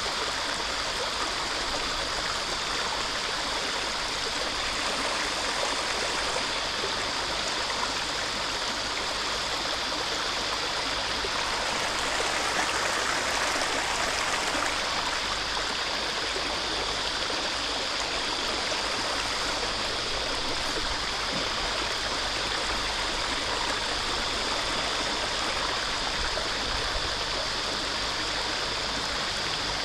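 Steady rushing noise of flowing river water, even and unbroken, swelling slightly about midway.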